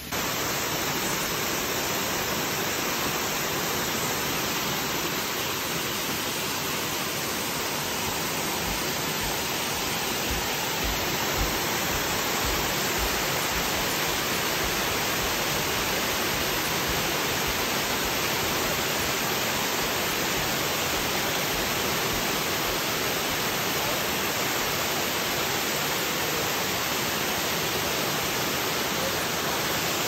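Waterfall rushing: a steady, even roar of falling water that does not change.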